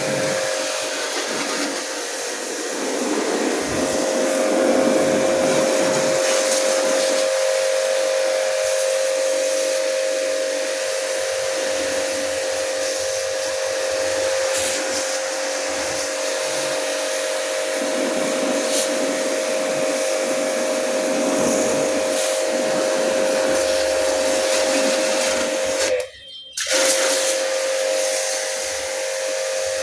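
A machine running steadily, with a steady hum and a loud hiss of rushing air or spray over it; it cuts out for about half a second near the end, then carries on.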